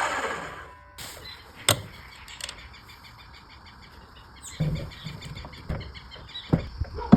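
A power tool winds down in the first second, followed by a few sharp knocks and low thuds of wood being handled, with faint repeated bird chirps in the background.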